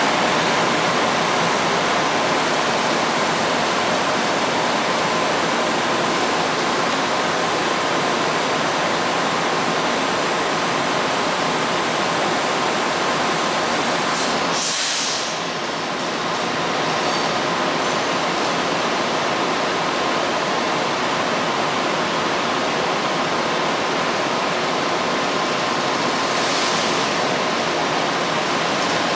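Steady rushing roar of an underground commuter-rail platform, with a faint steady tone running through it. About halfway through a brief high hiss sounds and the roar dips for a moment.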